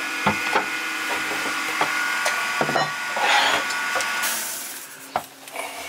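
Luxury vinyl floor planks being worked into place by hand: scattered sharp knocks and clicks of plank and tool on the floor, with a short scraping rub about three seconds in.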